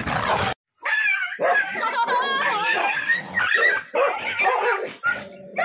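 Village dogs scuffling in a fight, then after a brief gap dogs yipping and whining in high, wavering tones.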